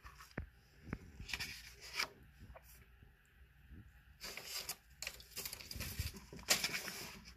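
Pages of a picture book being handled and turned: soft paper rustling with a few light taps, the rustle louder about four seconds in and again near the end.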